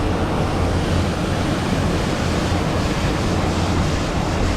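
Steady rush of flowing stream water below a dam, with wind rumbling on the microphone.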